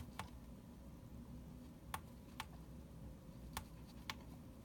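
Small tactile pushbuttons clicking as they are pressed and released, about six sharp clicks falling in pairs, to set the alarm time on an alarm clock.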